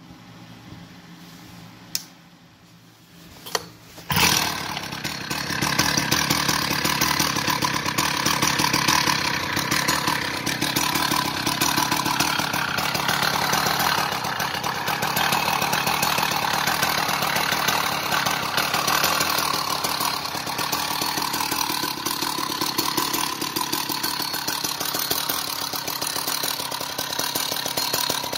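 Husqvarna 65 two-stroke 65cc chainsaw engine: a couple of clicks, then it starts about four seconds in and runs steadily.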